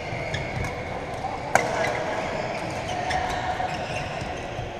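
Badminton racket strikes on a shuttlecock during a doubles rally: scattered sharp cracks, the loudest about a second and a half in, over the steady murmur of a busy sports hall.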